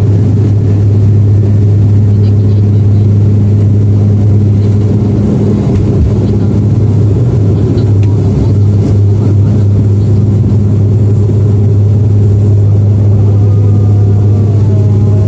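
Bombardier DHC8-Q400 turboprop heard from inside the cabin at takeoff power: a loud, steady low propeller drone with a dense rumble underneath.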